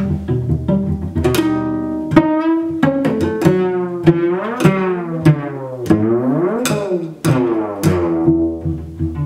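Solo cello played pizzicato: a run of plucked notes, several of them sliding up and down in pitch through the middle, over low notes left ringing.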